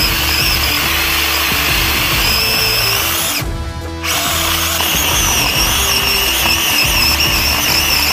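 SeeSii cordless electric mini chainsaw running with a high, wavering whine as its chain cuts into the trunk of a dead standing tree. It stops for about half a second a little after three seconds in, then starts cutting again.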